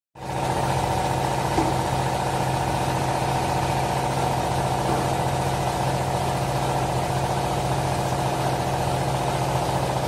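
Hydraulic power unit of a vertical clothes baler running: the electric motor and pump give a steady hum, a low drone with a higher whine over it.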